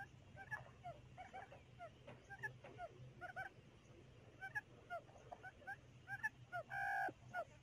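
Quail calls, many short curving chirps in quick succession, played as a lure for a quail trap. A louder, longer honking call comes near the end, over a steady low hum.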